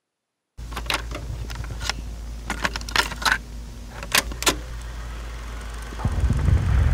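After a moment of dead silence, a few light metallic clinks and jingles sound over a steady low hum. A louder low rumble comes in near the end.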